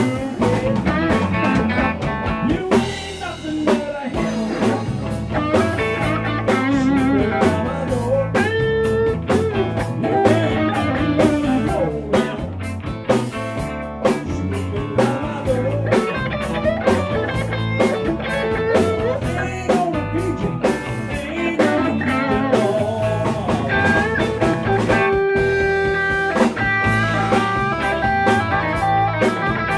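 Live blues-rock band playing an instrumental passage: an electric guitar lead with bent and wavering notes over electric bass and a drum kit.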